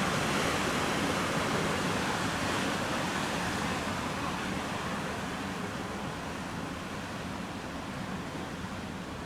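Sea surf washing onto a sandy beach: a steady rushing wash that slowly fades toward the end.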